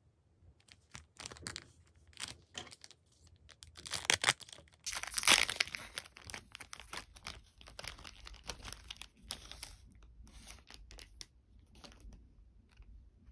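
Packaging being torn and crinkled by hand: a run of crackles and rustles, loudest about five seconds in.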